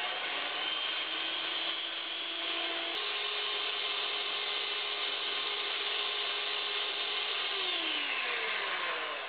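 Electric hand mixer running steadily with a whirring whine as its beaters whip egg whites in a small bowl. Near the end the pitch slides down as the motor is switched off and winds down.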